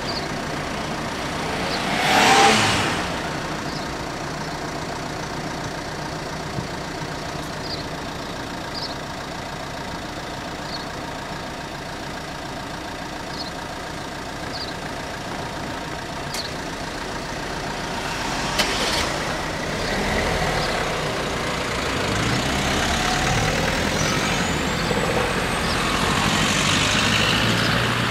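Road traffic crossing the level crossing: a car passes close about two seconds in, then several cars approach and drive over, with louder engine and tyre noise building towards the end.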